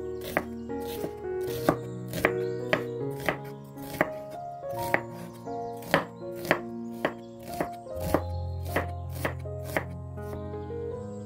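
Knife slicing shallots on a wooden chopping board: the blade hits the board in sharp, uneven taps, roughly two a second. Background music with held notes plays underneath.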